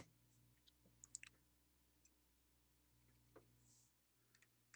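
Near silence with a few faint, scattered small clicks of a soldering iron's tip against a circuit board while surface-mount chip components are desoldered, over a faint steady hum.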